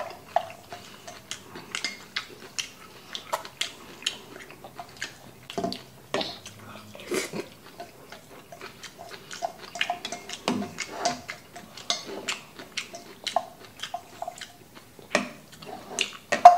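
Close-up eating sounds: wet chewing, slurping and lip smacks on spicy mixed buckwheat noodles, with irregular clicks of wooden chopsticks against a stainless steel bowl.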